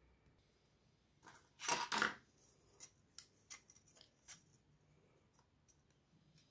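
Handling noise from a wooden stick and a steel ruler being picked up and laid against each other: a short scraping rustle about two seconds in, followed by scattered light clicks and taps.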